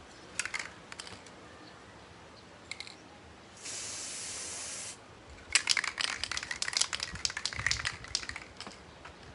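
Aerosol spray-paint can: a few clicks, then one steady spray hiss of about a second and a half, then the can shaken hard for about three seconds, its mixing ball rattling loudly.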